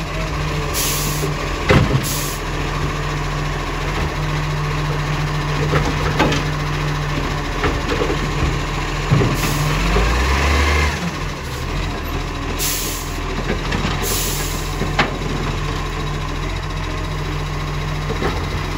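Iveco side-loader garbage truck running at idle while its automated arm grabs and lifts a wheelie bin, with several short hisses of air and a few sharp clunks from the arm. The engine surges briefly about ten seconds in.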